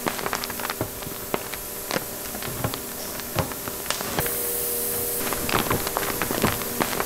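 Steady hiss of an aluminum melting furnace, with irregular crackles and clicks as the molten aluminum is stirred with a metal rod. The hiss turns brighter about four seconds in.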